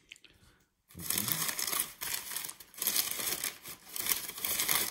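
Crumpled newspaper packing rustling and crinkling as a hand rummages through it in a cardboard box, starting about a second in.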